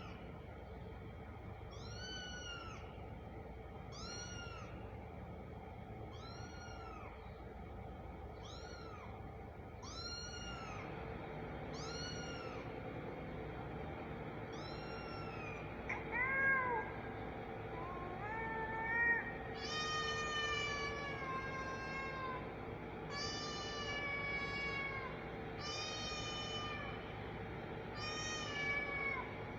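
Kitten meowing over and over: short mews that rise and fall, about every second and a half, then from about two-thirds of the way in, longer meows that slide downward.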